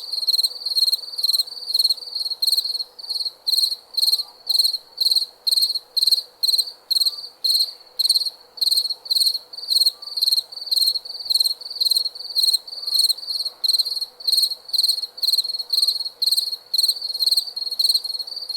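Cricket chirping in a steady, even rhythm, about two to three high-pitched chirps a second, as a night-time ambience.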